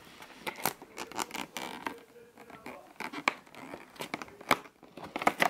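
Fingers scratching and picking at the cardboard of a Lindt chocolate advent calendar and tearing a door open: a run of irregular small scratches, clicks and tears.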